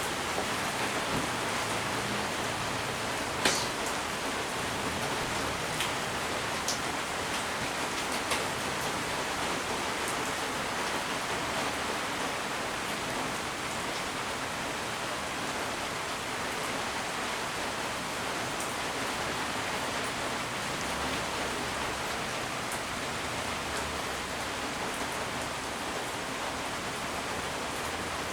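Steady rain falling, with a few sharp ticks in the first eight seconds or so.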